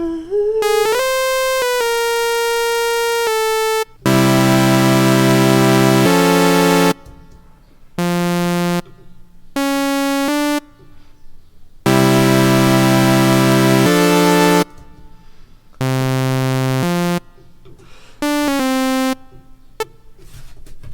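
Xfer Serum software synthesizer playing bright, rich chords and single notes from a keyboard, starting with a rising pitch glide; chords are held for a couple of seconds, then shorter stabs, stopping and starting with gaps as sounds are tried out.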